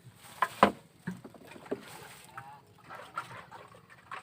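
Several knocks and thumps on a floating fishing raft, the loudest two close together about half a second in, then a few lighter ones.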